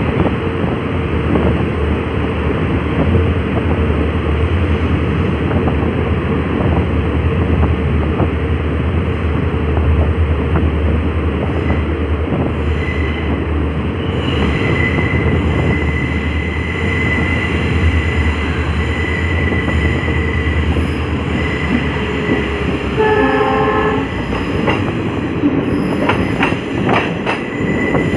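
Passenger train running through a tunnel, heard from an open coach doorway: a loud, steady rumble of wheels on rail. A thin high wheel squeal comes and goes from about the middle on, a short horn blast sounds about a second long near the end, and a few sharp clicks of wheels over rail joints follow.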